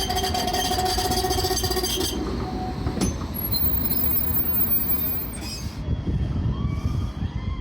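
Tram running past on the track: a steady whine for the first two seconds, a sharp click about three seconds in, then the low rumble of wheels on rail.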